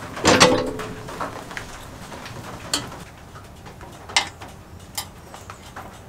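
Metal parts of a vintage lawn mower being handled and fitted by hand: a clunk with a brief ring about half a second in, then a few scattered sharp clicks.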